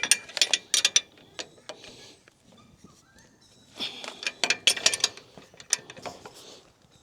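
Ratchet spanner clicking in quick runs while the nuts on a trailer jack's mounting bolts are done up, in two bursts about four seconds apart with a few scattered metal clinks between.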